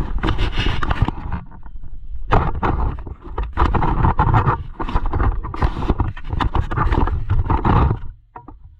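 Handling noise from a camera being fitted onto a stand: rubbing, scraping and knocks right on the microphone, loud and irregular, stopping suddenly about eight seconds in.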